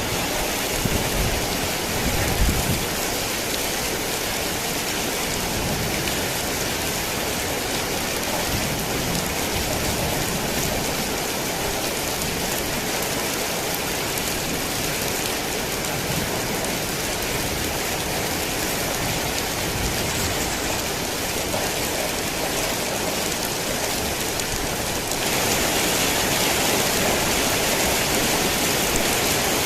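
Heavy rain falling steadily, a dense even hiss, with some low rumbling in the first couple of seconds. About 25 seconds in it abruptly becomes louder and hissier.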